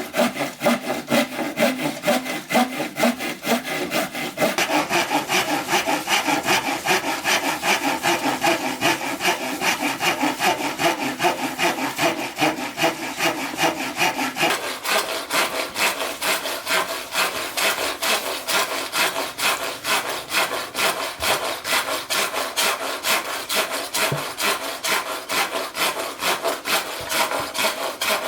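Hand saw cutting through bamboo in quick, steady back-and-forth strokes. The rasping tone of the cut changes a couple of times along the way.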